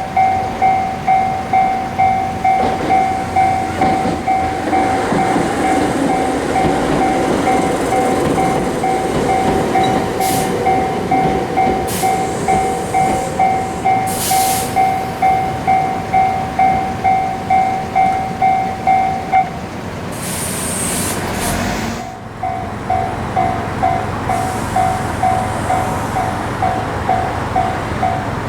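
Japanese level-crossing alarm bell ringing its electronic "kan-kan" at about two strikes a second while an electric train rumbles past through the crossing. The bell stops about two thirds of the way in, then after a short break a crossing bell with a slightly lower, doubled tone starts ringing again.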